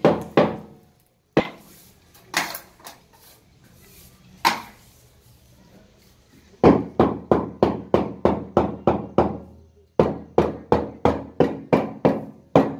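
Hammer tapping a granite stair tread down into its cement mortar bed to set it level: a few scattered knocks, then two quick runs of about three taps a second from around the middle to near the end.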